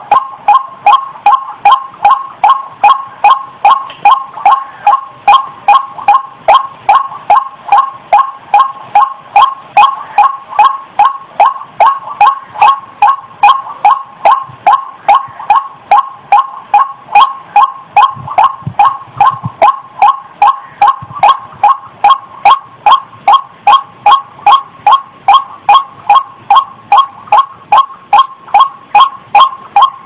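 White-breasted waterhen (ruak-ruak) calling: a short, pitched note repeated monotonously about two to three times a second without a break.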